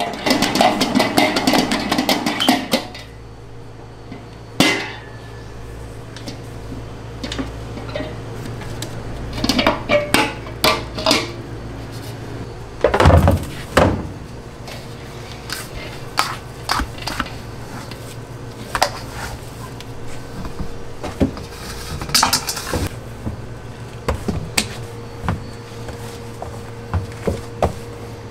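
Stand mixer kneading dough with its dough hook in a steel bowl, stopping about three seconds in. Scattered metallic clanks and knocks follow as the dough is handled in the steel bowl and plastic tray, with a heavy thump about halfway through.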